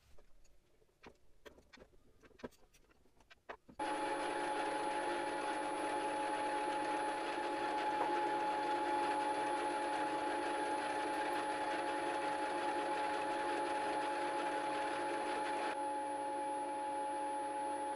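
A few faint clicks of parts being handled, then about four seconds in a small milling machine starts running with a steady whine and gear hum over a dense hiss. It is milling the worn, bulging clamping face of a lathe toolpost flat.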